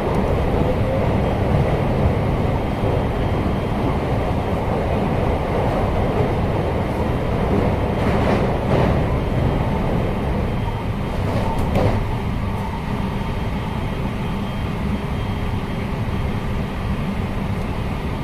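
Running noise of a JR West 223 series 6000-subseries electric train heard from inside the car: a steady rumble of wheels on rail as it crosses a steel truss bridge, with a few sharper clatters about halfway through and again around two-thirds of the way in.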